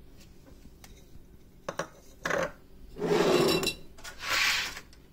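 Light clicks and knocks from handling the plastic cup and lid of a small electric grinder, then three short scraping, clinking bursts, the longest about three seconds in, as ground eggshell powder is handled with a spoon and a glass jar.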